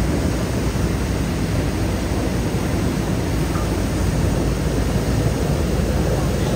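Water gushing from a fire hydrant that a car has knocked open, a steady rushing noise with no break.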